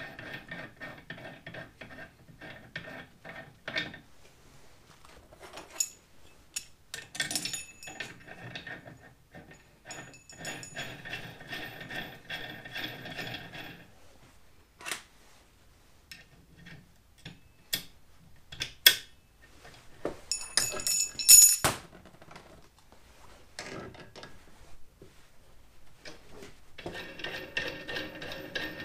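A steel nut spun by hand along the threads of a grade 8 bolt clamped in a vise, a metallic rasping that comes in stretches of a few seconds. Between the stretches there are scattered clicks and knocks of metal parts being handled, with two sharp metal clinks past the middle, the loudest sounds here.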